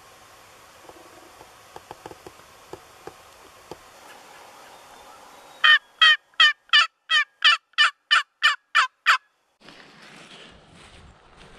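Wild turkey calling: a run of eleven loud, evenly spaced notes, about three a second, starting about halfway through. Near the end, footsteps rustle through grass.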